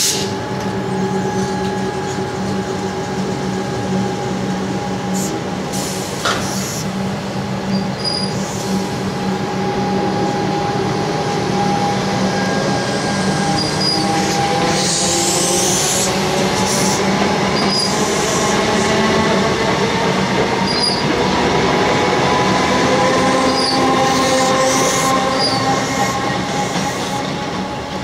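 Comeng electric suburban train pulling out along the platform: a steady hum, then from about halfway a whine that climbs in pitch as the traction motors accelerate it, with scattered wheel clicks over the rail joints. The sound fades near the end as the train leaves.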